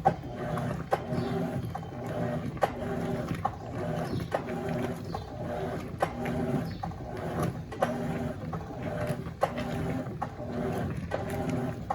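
Electrolux LF90 top-loading washing machine agitating a load of towels: the motor hums in short spells, reversing the agitator a little more than once a second, with a sharp click at each reversal.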